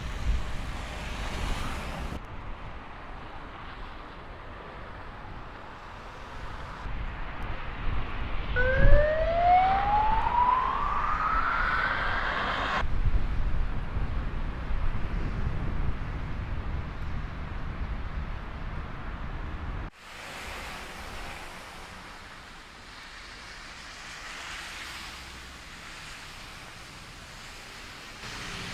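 Outdoor street noise in a snowstorm: a steady rumble of vehicles and wind. About a third of the way in, a whine rises steadily in pitch for about four seconds and then cuts off. The noise drops off suddenly about two-thirds of the way through.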